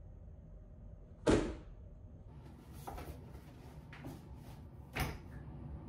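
Books being handled and set down on a desk: one sharp knock about a second in, then lighter knocks and shuffling, and another knock near the end.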